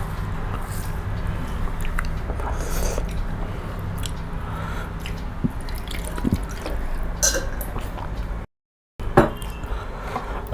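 Eating sounds: chewing and wet mouth noises with scattered small clicks, over a steady low hum. The sound drops out for about half a second near the end, followed by a sharp click.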